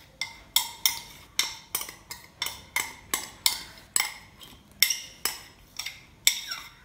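Repeated sharp taps with a short ringing, glassy tone, about three a second: a glass bowl being knocked to empty thick garlic and ginger paste into gram flour.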